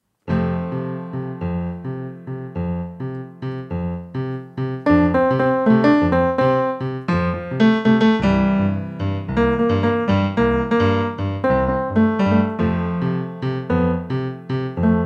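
Piano playing: a rhythmic, chord-based piece over a steadily repeated bass that starts suddenly just after the opening and grows louder and busier about five seconds in.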